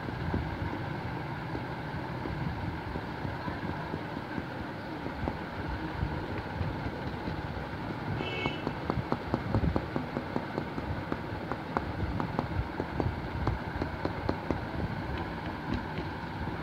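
A bundle of cotton buds dabbing paint onto paper, making quick soft taps several a second from about halfway through, over a steady background rumble.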